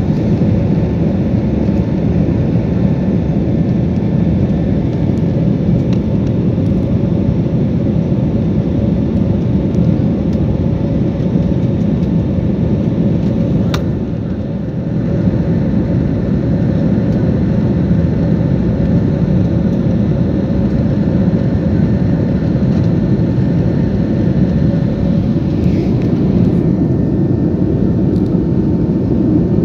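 Airliner cabin noise at a window seat: the steady rush of jet engines and airflow, with a faint steady whine above it. The level dips briefly about halfway through.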